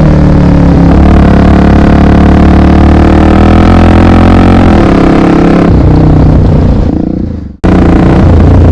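Honda XR 250 Tornado's single-cylinder four-stroke engine running under way, loud and close, its pitch shifting slightly as the throttle changes. It fades away shortly before the end and comes straight back.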